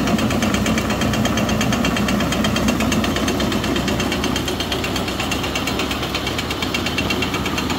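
Meadows grist mill grinding corn, belt-driven by a 1950 Farmall Cub tractor engine running at a steady working speed: a constant mechanical clatter of rapid, even ticks over the engine's low drone.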